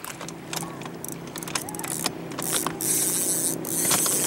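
Spinning reel clicking and rattling as a hooked catfish is fought on the rod, with short hissy rushes, over a steady low hum that starts at the beginning.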